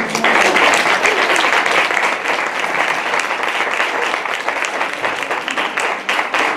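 Audience applauding steadily, a dense round of clapping at the end of a performance.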